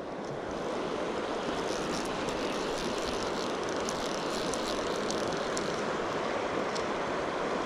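Steady rush of river water flowing over a shallow, rocky riffle, heard close to the surface, with a few faint ticks.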